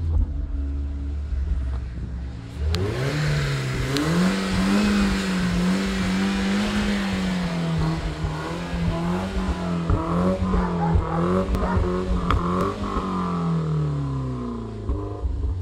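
BMW E36 316i's four-cylinder engine and exhaust: idling, then revved up about two and a half seconds in and held at raised revs with small rises and dips for about ten seconds, before dropping back towards idle near the end.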